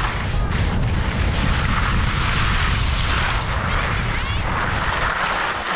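Wind buffeting the camera's microphone as the skier travels downhill, over the hiss of skis sliding on snow that swells and fades with each turn. The noise eases off right at the end as the skier slows down.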